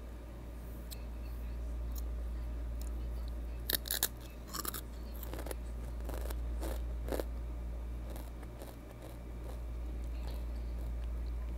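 Close-up crunching bites and chewing of Takis rolled tortilla chips: a quick cluster of crisp crunches about four seconds in, then a few single crunches as the chewing goes on. A steady low hum runs underneath.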